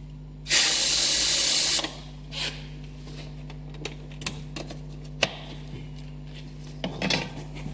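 Aerosol can of brake cleaner sprayed into an open turbo intake hose in one loud hiss lasting a little over a second, a starting-fluid test for missing fuel. It is followed by a few light clicks and knocks as the hose is handled.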